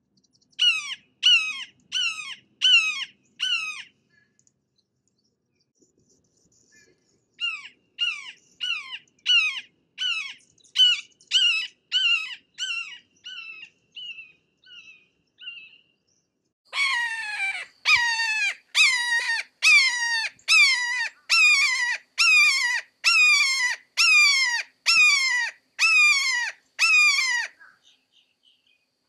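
Red-shouldered hawk repeating its loud "kee-aah" call in three runs, about three calls every two seconds, each call sliding down in pitch. The second run fades toward its end; the last run is the loudest and longest.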